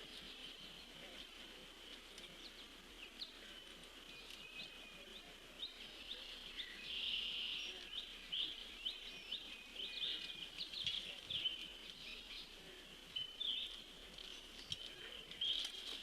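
Small birds chirping, with a quick run of short, high chirps starting about six seconds in, over a steady high-pitched drone.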